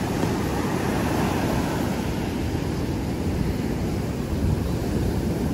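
Ocean surf breaking and washing up the beach: a steady low rush of water.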